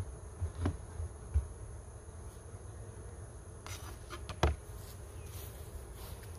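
Honeybees buzzing steadily, with a few sharp clicks and a knock about four and a half seconds in, the loudest sound.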